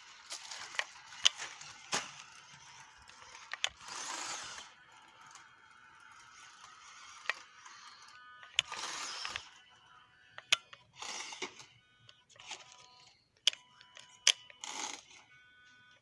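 Small electric RC crawler truck driving: its motor and geared drivetrain whirr in short spurts, with sharp clicks and clatter of the tyres and chassis over rough ground.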